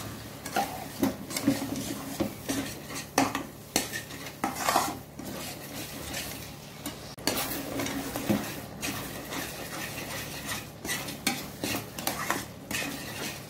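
Flat spatula scraping and knocking against a black wok, stirring a cornflour-and-soy-sauce gravy, with irregular scrapes and taps several times a second.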